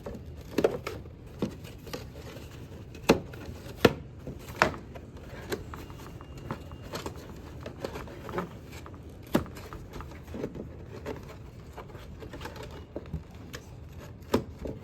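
Die-cut paperboard display pieces being folded, creased and handled, giving scattered sharp clicks and taps, the loudest about three and four seconds in.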